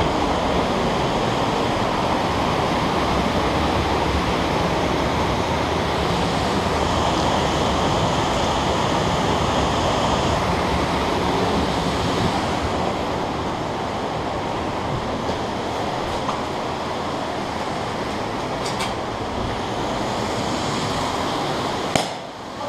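Steady rushing noise of wind on a body-worn camera's microphone, a little quieter from about two-thirds of the way in, with a couple of faint clicks near the end.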